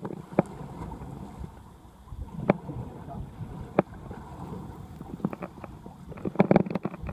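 Steady low rumble and wash of a small fishing boat at sea, with wind, and scattered sharp knocks and clicks from the rod and reel being worked against a hooked fish, several close together near the end.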